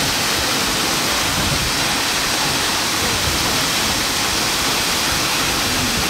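Minoh Falls, a tall waterfall, plunging into its plunge pool: a steady, loud rush of falling water.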